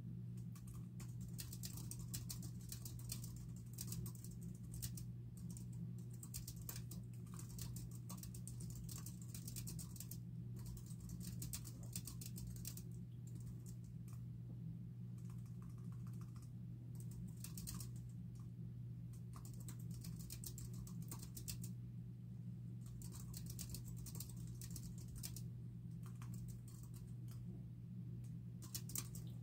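Typing on a computer keyboard: quick runs of keystrokes broken by short pauses, over a steady low hum.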